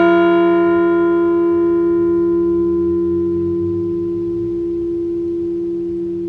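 Liberty Bell replica ringing out after a single strike and slowly fading: a deep, steady hum outlasts higher overtones that die away over the first few seconds. It is tolled once in memory of a deceased veteran.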